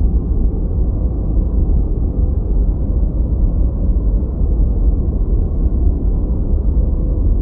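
Steady noise track of the kind sold as white noise for focus and calm, dark and deep in tone, with most of its weight in the low rumble and little treble. It holds even throughout with no changes or separate events.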